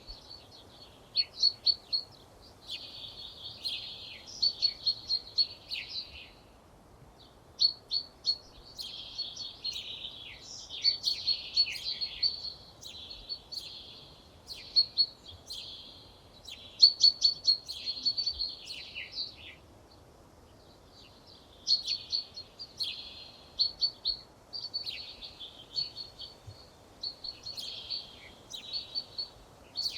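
Songbirds singing: phrases of rapid, repeated high notes and trills, each a few seconds long, separated by short pauses, with a longer pause about two-thirds of the way through, over a faint steady outdoor hiss.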